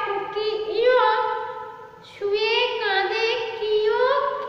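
A woman singing a Bengali alphabet rhyme unaccompanied, in long drawn-out phrases, with a short breath break about two seconds in.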